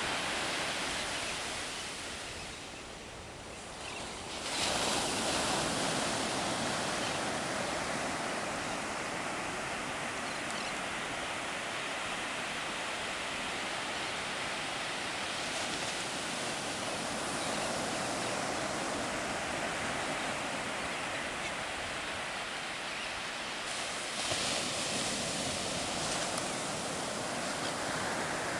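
Ocean surf breaking and washing up a sandy beach: a steady rushing noise that dips briefly, swells again about four seconds in, and surges once more near the end.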